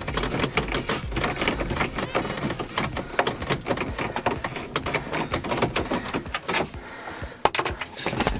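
Hand screwdriver with a T30 Torx bit backing out the screws that hold the car's centre console trim, a quick run of clicks and light plastic knocks.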